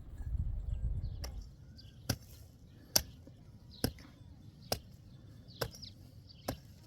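A series of sharp, evenly spaced strikes, about one every second, like a tool hitting something hard, with birds chirping faintly in between. A low rumbling noise comes before the strikes begin.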